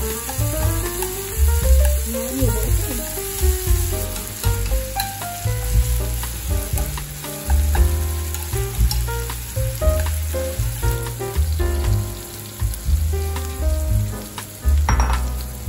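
Ground beef sizzling as it stir-fries in a ceramic frying pan, stirred with wooden chopsticks. Background music with a melody and a pulsing bass plays over it.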